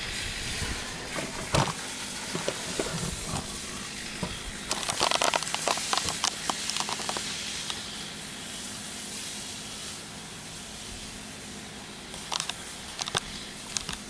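Steady hiss of a soft-wash spray wand jetting cleaning solution, with short bursts of crackling clicks about five seconds in and again near the end.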